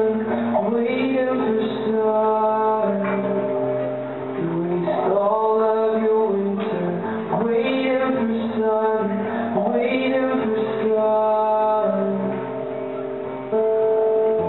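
Man singing with long held notes while playing an acoustic guitar, a live solo singer-songwriter performance.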